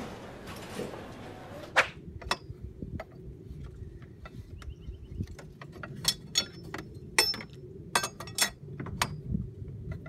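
Sharp metallic clinks and taps, a dozen or so scattered irregularly, some ringing briefly, as wrenches work the fan clutch nut loose from the water pump of a 4.2-litre Trailblazer engine. A single loud knock comes about two seconds in.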